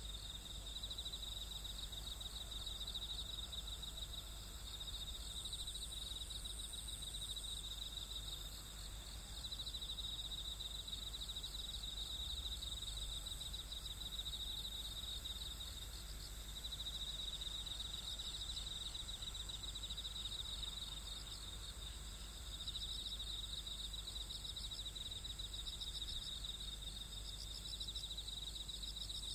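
Night insects, crickets among them, chirping in a grassy field: a high pulsing trill that comes in phrases of several seconds with short breaks, over a steadier, higher insect hiss and a low steady hum.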